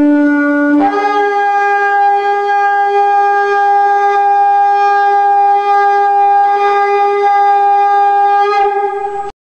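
Shofar (ram's horn) blown: a short lower note steps up about a second in to one long, steady higher note, which cuts off suddenly near the end.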